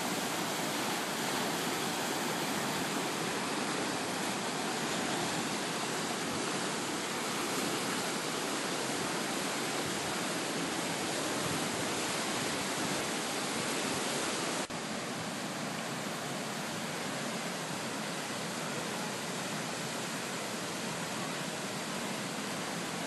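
Flooded Boulder Creek rushing in a steady roar of fast, turbulent water. About two-thirds of the way through, the sound steps down slightly and carries on.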